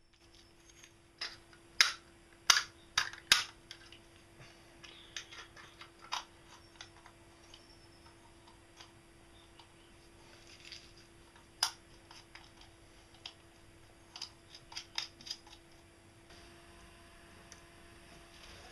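Small metal parts clicking and clinking as they are handled and fitted together: a quick run of sharp clicks in the first few seconds, then scattered lighter ones, over a faint steady hum.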